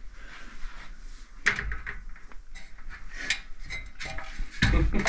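Black metal loft ladder clanking and knocking as it is grabbed and climbed: scattered metallic clicks from about a second and a half in, then a few heavier thumps near the end.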